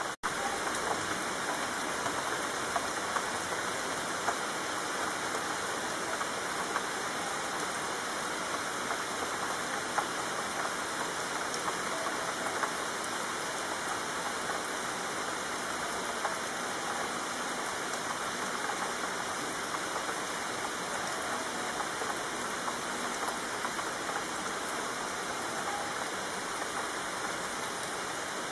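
Steady rainfall: an even hiss of rain with scattered louder individual drop hits.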